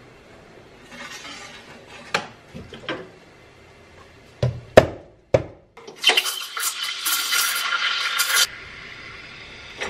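A few light clicks and several sharp knocks of cups and barista tools being handled on the espresso machine and counter, then a loud hiss for about two and a half seconds from about six seconds in: the espresso machine's steam wand being purged before milk steaming.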